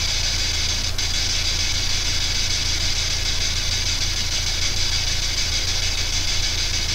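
P-SB7 spirit box sweeping through radio stations: steady static hiss over a low hum, with a faint click about a second in.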